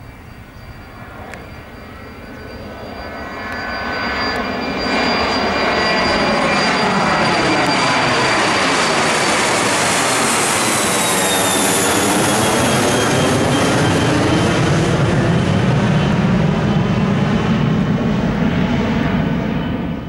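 A Cessna Citation Sovereign+ business jet's twin Pratt & Whitney PW306D turbofans at takeoff power as it climbs out and passes overhead. The noise grows loud over the first five seconds and then stays loud. A high turbine whine drops in pitch about ten seconds in as the jet passes over, and the roar has a sweeping, phasing quality.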